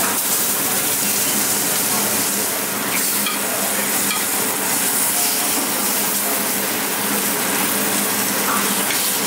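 Block of beef searing in fat in a stainless sauté pan, sizzling steadily, with light scrapes of a basting spoon against the pan.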